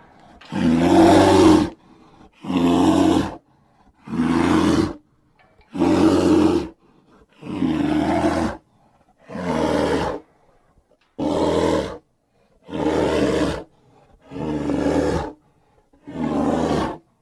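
A string of about ten separate monster roars, each about a second long with short silent gaps between them. The roars are a custom creature sound effect mixed from movie giant-ape and kaiju roars with lion and grizzly bear roars.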